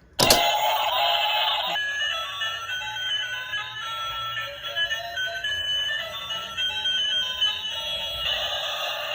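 A tinny electronic tune, a melody of short beeping notes stepping up and down in pitch with no deep bass.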